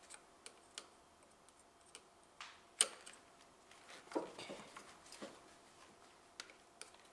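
Light scattered clicks and small scrapes of pliers and a plastic quick-connect fuel line connector being squeezed at its release tabs and wiggled, the connector not yet letting go. One louder click comes about three seconds in, and a short run of scraping follows a little over a second later.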